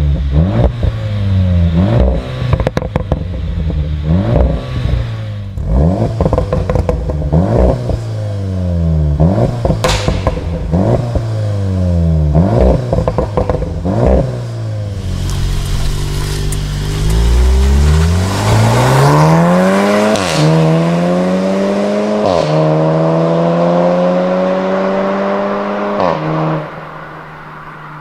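VW Golf R Mk7.5's turbocharged 2.0-litre four-cylinder engine revved in quick blips, with exhaust pops and crackles between them. It then accelerates hard through the gears, the pitch stepping down at each upshift about three times before the throttle is lifted near the end.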